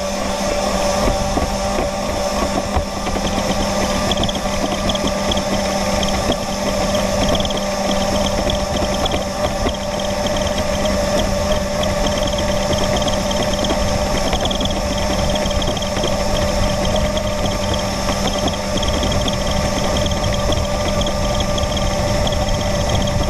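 Radio-controlled model boat's motor running at a steady pitch, heard close up from on board, with water rushing against the hull as it speeds across the lake.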